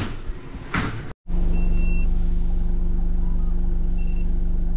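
A couple of knocks, then after a sudden break about a second in, an electronic key-cutting machine runs with a steady hum, beeping briefly twice.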